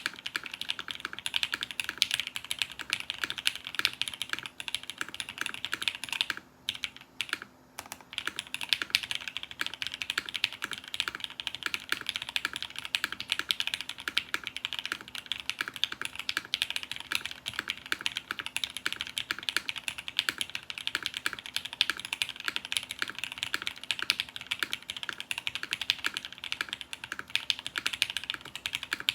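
Continuous typing on a custom 60% mechanical keyboard, a zekk.works Ogre with a polycarbonate case and copper bottom, fitted with Krytox 205g0-lubed Gateron Black Ink linear switches on a UHMWPE plate, with GMK keycaps and TX stabilizers. The typing breaks off for about a second and a half some six seconds in, then carries on.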